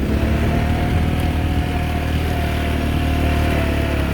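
Quad (ATV) engine running at a steady pitch while riding.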